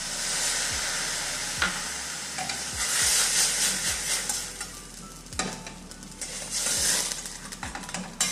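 Cognac poured into a hot stainless-steel pan of sautéed mushrooms, sizzling loudly, with a metal spatula stirring and scraping the pan. This is the flambé step: the sizzling swells in surges as the pan is tipped to the gas flame and the alcohol burns.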